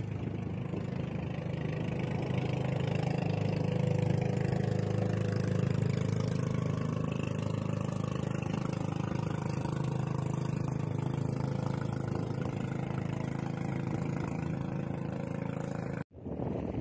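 Boat engine running steadily under way, growing a little louder over the first few seconds, then cut off abruptly near the end.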